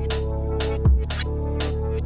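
Electronic background music: held synth chords over a deep bass that slides down in pitch about a second in, with a sharp beat hitting about twice a second.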